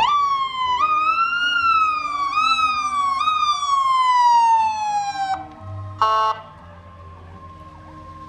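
Electronic siren on a fire department SUV working in manual mode: the pitch jumps up with each push about five times, then winds down in one long falling slide and cuts off suddenly. About a second later comes a short horn blast.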